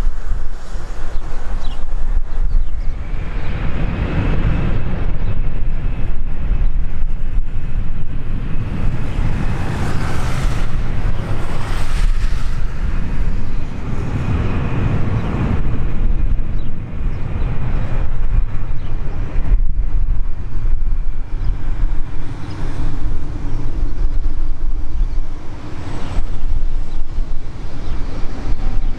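Airbus A320-214's CFM56 turbofan engines running at high power on the takeoff run, a loud deep rumble with a faint high whine over it. Wind buffets the microphone.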